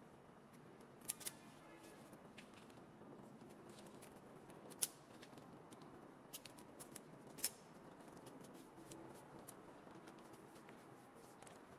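Faint background hiss with a handful of short, sharp clicks and taps, scattered irregularly. The loudest come about five seconds in and again about seven and a half seconds in.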